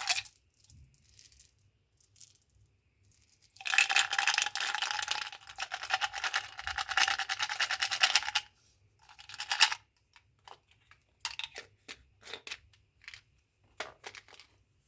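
Plastic gum and candy packaging crinkling and tearing as it is opened: a long stretch of dense crackling lasting about five seconds, a shorter burst just after, then scattered light crinkles and taps.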